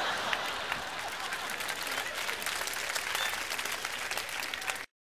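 Live audience applauding after the end of a spoken monologue, a dense patter of clapping that cuts off abruptly near the end.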